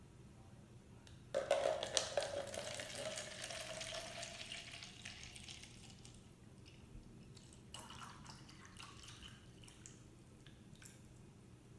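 Water pouring from a plastic bottle into a paper cup. It starts suddenly a little over a second in and is loudest for the first few seconds. It then thins to a trickle, with a few smaller splashes later on.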